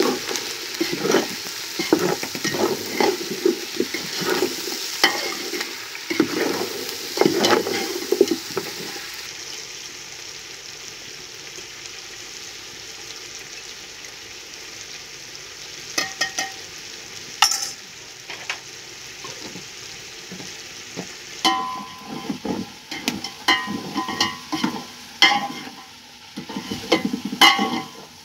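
Metal ladle scraping and stirring in a steel pot of meat frying over a wood fire, with a steady sizzle under it. The stirring stops about a third of the way in, leaving the sizzle and a few clicks, and starts again with more clattering about two-thirds of the way through.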